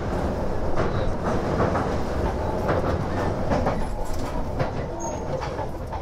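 Running noise inside the passenger car of a 287-series electric express train under way: a steady rumble with irregular wheel clicks over rail joints.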